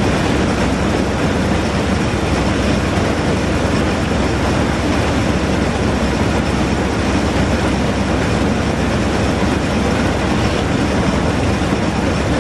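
Minneapolis Moline corn sheller running steadily while shelling ear corn: a loud, even mechanical noise that does not change.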